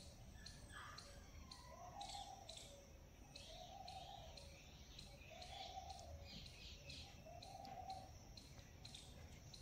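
Faint bird calls: a short, arched note repeated four times, about every two seconds, over light high-pitched chirps and ticks.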